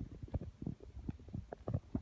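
Human stomach gurgling from digestion: a quick, irregular run of short bubbling pops and rumbles, about five a second.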